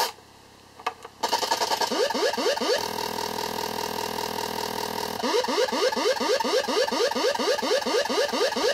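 Olegtron 4060 CMOS noise box (CD4060 oscillator/divider) cutting out for about a second while a resistor is patched into its oscillator, with a few clicks, then sounding again. It makes a steady electronic buzz overlaid with quick repeating upward-sweeping chirps, about four or five a second. The chirps stop for a couple of seconds of plain drone, then return.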